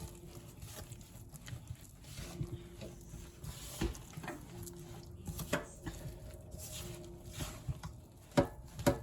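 Sweet potato pudding batter being mixed by hand in a bowl: faint soft stirring with a few sharp knocks against the bowl, the loudest near the end.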